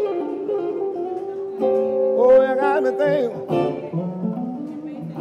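Electric guitar playing a slow blues, with held notes and, about two seconds in, bent notes that waver in pitch.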